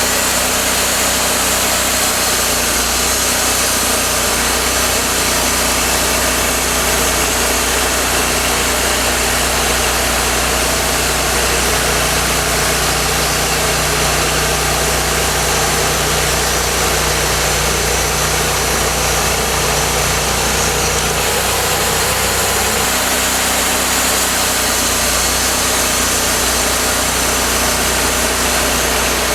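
Cook's MP-32 portable bandsaw mill running steadily, its engine and band blade making a loud, even noise. The engine's low tone shifts about 21 seconds in.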